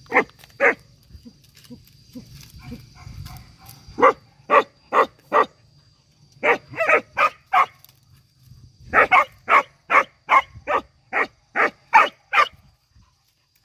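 A dog barking in short runs: two barks, then four, then six, then a quicker series of about ten, roughly two barks a second.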